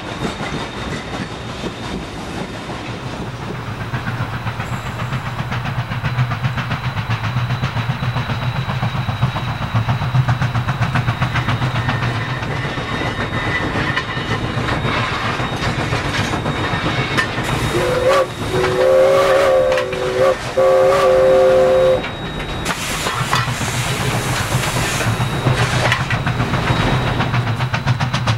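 New Haven #3025, a 2-8-2 Mikado steam locomotive, working with a steady rapid chuffing exhaust as it hauls a freight train past. About eighteen seconds in, its whistle sounds two blasts of several tones at once, the loudest sound here.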